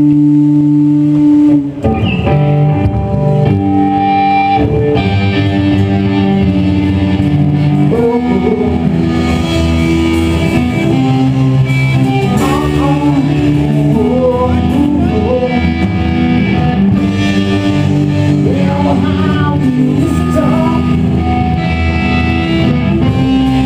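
Live rock band performing: amplified electric guitar playing chords, with a male voice singing over it from about eight seconds in.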